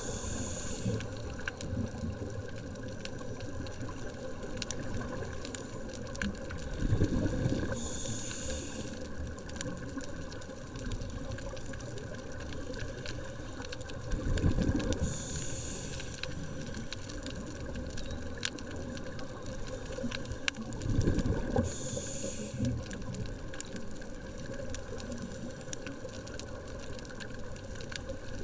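A scuba diver breathing through a regulator, heard underwater: a steady wash with a rush of breath and exhaled bubbles about every seven seconds, four times.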